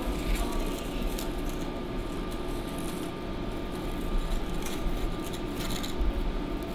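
Brittle glazed clay pieces being lifted and set down on a table by hand, with a few faint scrapes and crackles over a steady low hum.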